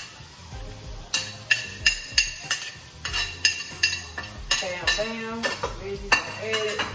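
Metal spoon stirring in a frying pan of browning food, knocking against the pan in repeated ringing clinks, about two a second, starting about a second in.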